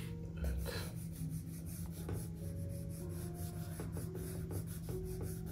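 Pencil scratching and rubbing on sketchbook paper in short shading strokes, over a low steady hum.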